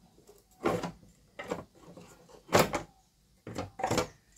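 A handful of short knocks and clunks as the bottom strip of an LED wall clock's frame is worked loose and pulled off the case.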